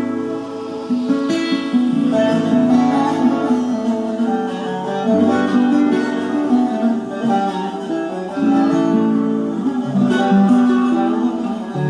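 Instrumental music played on plucked strings, a guitar or a similar stringed instrument, with notes changing throughout.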